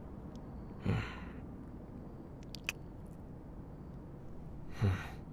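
A man's two short, soft voiced sighs with a falling pitch, one about a second in and one near the end. Between them are a few faint mouth clicks, over a steady low background hiss.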